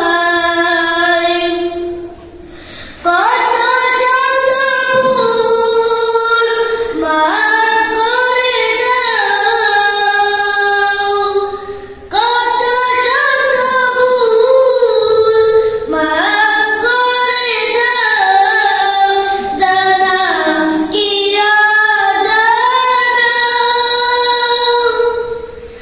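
A boy's voice singing long melodic phrases into a headset microphone, with short breaks about 2 s in, about 12 s in, and just before the end.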